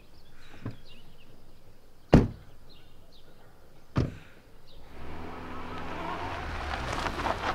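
Two car door slams about two seconds apart, then a car engine running and growing louder.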